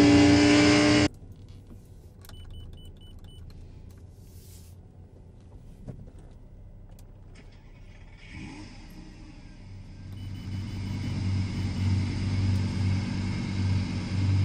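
Straight-piped Mazda 3 four-cylinder exhaust, loud while driving, heard inside the cabin; it cuts off abruptly about a second in. A quiet stretch with a few faint clicks follows, then a low engine rumble builds from about ten seconds in.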